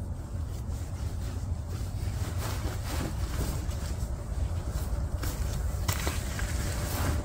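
A puffy sleeping bag rustling and crinkling as it is spread out and smoothed by hand, in irregular bursts that pick up about two seconds in. Under it there is a steady low rumble.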